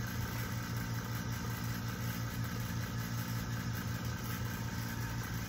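Oil-sealed vacuum pump running with a steady, even hum as it pulls vacuum on a wood-drying vacuum kiln.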